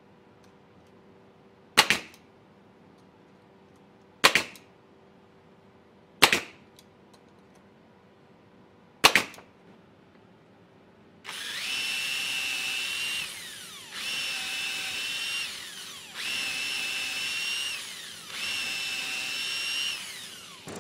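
Nail gun firing four sharp shots a few seconds apart, tacking wooden blocks to support strips. Then a power drill bores into the wooden blocks in four runs of about two seconds each, a steady high whine that winds down as the trigger is released each time.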